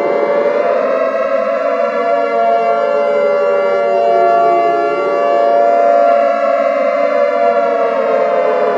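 Emergency warning siren wailing. Its pitch climbs at the start, sinks slowly, climbs again about five seconds in and sinks slowly again, over a steady held tone.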